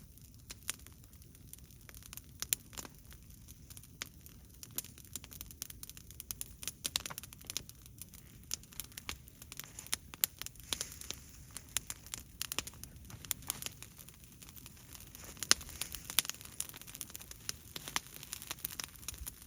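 Bonfire of fallen leaves and dead branches crackling, with many irregular sharp pops and snaps over a low steady rumble.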